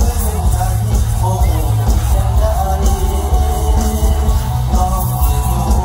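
Live mor lam stage band playing loud amplified music with a heavy, steady bass.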